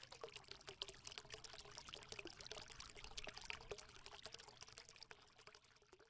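Faint crackling sound effect made of many tiny rapid clicks, like a trickle of liquid, accompanying a logo animation; it fades out near the end.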